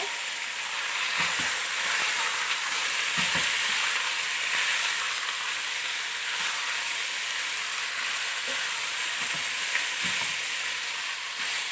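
Chunks of beef searing in hot oil in a pot, sizzling steadily while they are stirred and turned, with a few light knocks of the spoon. The meat is being browned quickly before it is simmered.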